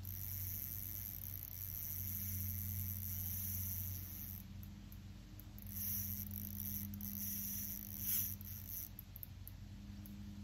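Baitcasting reel cranked in short spells while fighting a large fish: a faint high whir for the first few seconds, then coming and going. A steady low hum runs under it.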